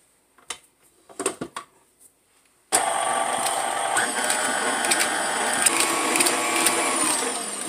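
Electric stand mixer with a wire whip: a few clicks and knocks, then the motor starts abruptly about three seconds in and runs at a steady whine while beating a cream cheese and peanut butter filling, then falls in pitch and winds down near the end as it is switched off.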